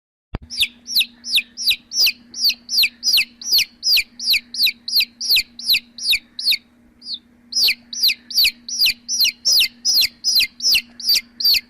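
A domestic chick peeping loudly and insistently, about three peeps a second, each peep falling in pitch, with a short break just past halfway. A faint steady low hum runs underneath.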